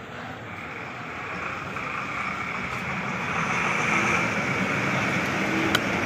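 Road traffic, a vehicle growing steadily louder as it comes closer, with a single sharp knock near the end.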